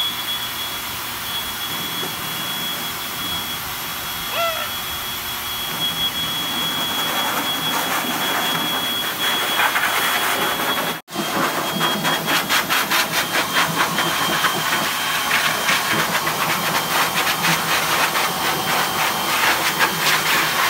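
Pet blow dryer running with a steady rush of air and a thin high whine, drying a freshly bathed dog's wet coat. About halfway through, after a cut, the air noise takes on a fast fluttering pulse.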